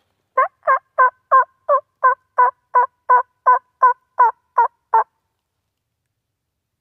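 Wild turkey yelping loudly: a run of fourteen evenly spaced yelps, about three a second, that stops abruptly about five seconds in.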